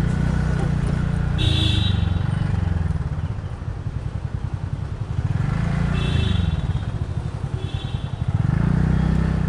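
TVS Ntorq 125 scooter's single-cylinder engine running on the move, its note rising and falling a few times with the throttle, over road and wind noise.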